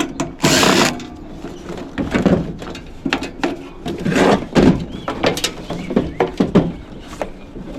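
Screws being worked out of a small microwave's cooling-fan mount: a short noisy burst, then irregular clicks, scrapes and rattles of tool on sheet-metal parts.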